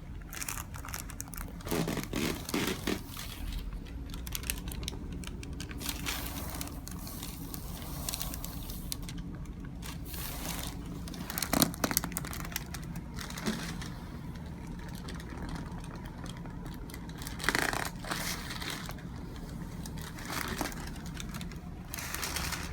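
Rustling and scraping as a body shifts on a padded chiropractic treatment table, with a sharp click about halfway through.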